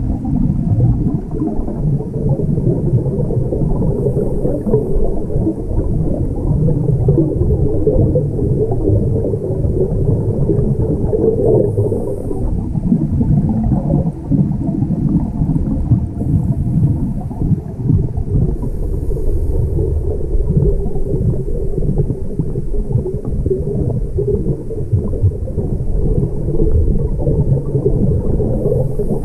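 Scuba breathing heard underwater: the regulator's exhaled bubbles make a steady, crackling, bubbling rumble, with a few brief faint hisses.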